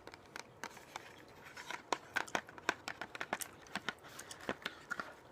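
Gum chewed close to the microphone: irregular sharp clicks and smacks, several a second.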